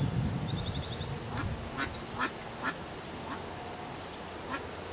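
A duck quacking a few short times, with a small bird chirping high in the background.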